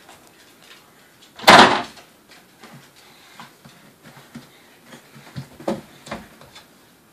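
A door rattles and clunks loudly once, about a second and a half in, then gives a few lighter clicks and knocks near the end: a toddler working at a door handle.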